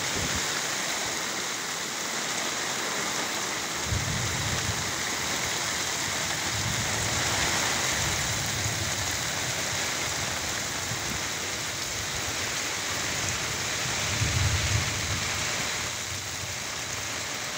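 Heavy downpour with wind, falling steadily on a flooded rice paddy. There are a few low rumbles, one about four seconds in and a stronger one past the middle.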